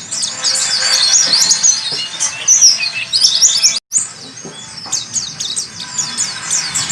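White-eye (pleci) singing a fast, high twittering song of rapid chirps, which cuts out for a moment about four seconds in.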